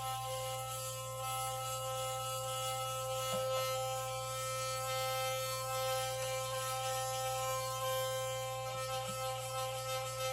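Electric sonic toothbrush buzzing steadily as it scrubs leftover glue off a phone's LCD.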